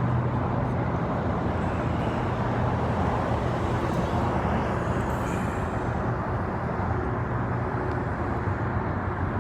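Steady vehicle and traffic noise: a constant low engine hum under an even rush.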